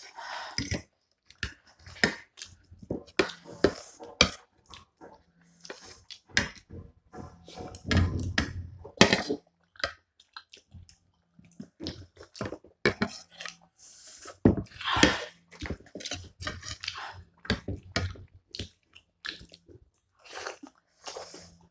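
Close-up chewing of soupy momos, with many short, irregular clicks and scrapes of spoons and forks on ceramic plates.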